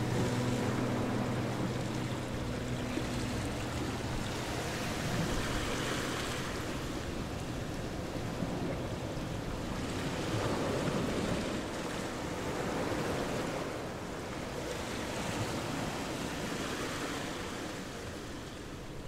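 Small waves lapping and washing against a stone-and-brick riverbank, surging and easing every few seconds, with wind buffeting the microphone. A few held musical tones fade out in the first few seconds.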